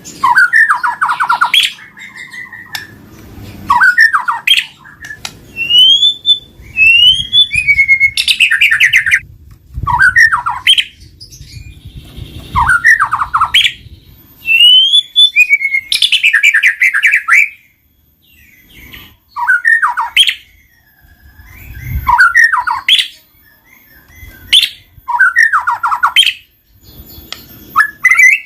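White-rumped shama (murai batu) in full song: loud, varied phrases a second or two apart, mixing rising whistles, rapid trills and harsh chattering notes.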